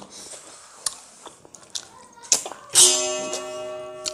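Small wet mouth clicks and smacks from chewing, then a little under three seconds in a single strummed guitar chord rings out and slowly fades.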